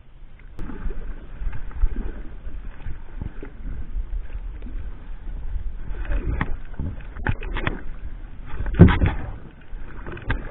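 A kayak being paddled: the paddle dipping and splashing in the water, with several sharp knocks from the paddle or gear against the boat. The loudest knock comes near the end.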